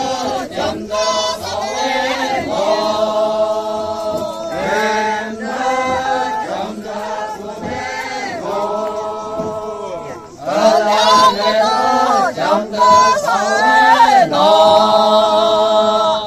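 A mixed group of Naga tribal singers chants a traditional folk song in unison, on long held notes that move step by step. About ten seconds in the singing breaks off briefly, then comes back louder and closer.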